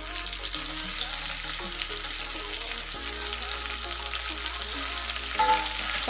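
Onions and freshly added chopped tomatoes sizzling in hot oil in a non-stick frying pan, with a spatula stirring and scraping through them.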